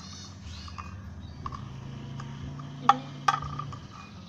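Two sharp knocks on a container, about half a second apart, each with a short ring, likely a stirrer tapping it while mixing slime; a few fainter ticks come before them.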